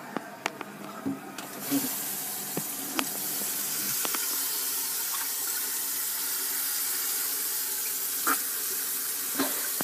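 Bathroom sink tap turned on about a second and a half in, water running steadily into the basin, after a few sharp knocks.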